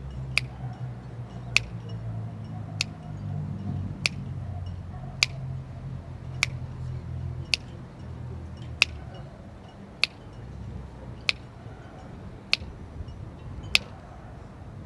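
Sharp ticks at an even pace, about one every 1.2 seconds, over a low steady hum.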